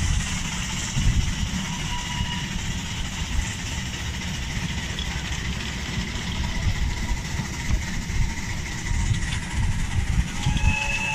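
Miniature railway trains running on the track: a steady low rumble of wheels and carriages on the rails as a loaded passenger train runs past alongside. A brief high tone rises above the rumble near the end.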